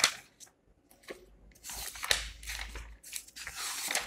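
Soft rustling of paper being handled, in two stretches beginning a little under two seconds in and again near the end, after a quiet start with a few faint clicks.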